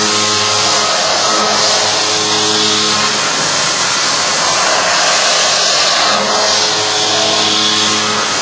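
CNC machine running while machining a workpiece: a loud, steady hiss with a low hum underneath that fades out for about three seconds in the middle and then returns.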